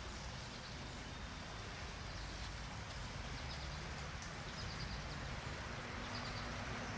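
Steady rushing of a creek running at high water, with a few faint bird chirps.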